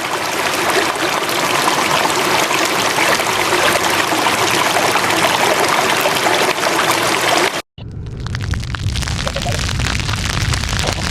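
Disaster sound effect of heavy rain or rushing water, a steady dense hiss that fades in. About three quarters through it cuts off abruptly, and a different effect starts: a low rumble with crackling.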